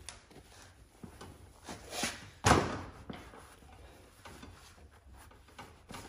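A few clunks and clicks of a lawn tractor's front wheel and hub parts being handled and fitted back onto the spindle, the loudest a sharp clunk about two and a half seconds in.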